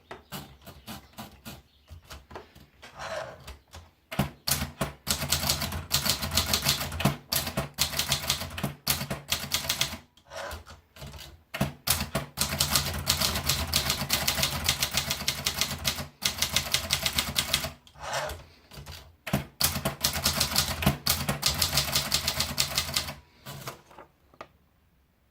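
Adler Tippa portable manual typewriter being typed on. A few scattered keystrokes come first, then three long runs of rapid typing with short pauses between them, stopping shortly before the end.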